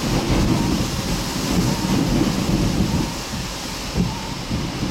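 Strong rear-flank downdraft winds from a tornadic thunderstorm buffeting the storm-chase vehicle: a loud, steady, deep rushing noise, with wind too strong to keep driving into.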